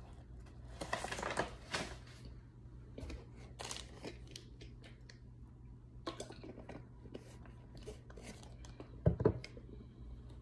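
Cornstarch chunks and powder being crunched and chewed in short bursts, with a thump near the end.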